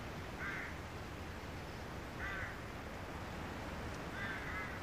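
A bird calling: three short calls about two seconds apart, over a low steady background rumble.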